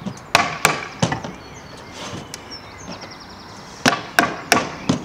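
Hammer tapping wooden canvas stretcher bars together at a corner joint: three sharp knocks in the first second, then four more near the end.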